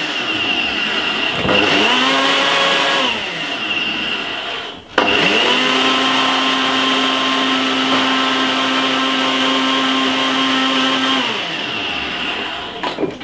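Ninja personal blender blending fine cornmeal with coconut milk and whole milk into a smooth porridge batter. The motor spins up and down in short pulses, stops with a click about five seconds in, then runs steadily for about six seconds before winding down near the end.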